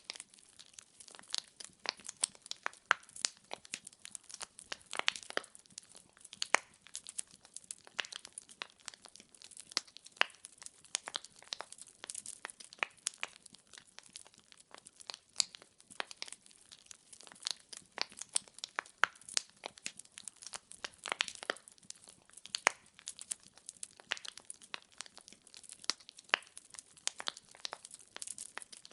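Burning firewood crackling, with a steady run of irregular pops and snaps, some much sharper than the rest, over a faint hiss.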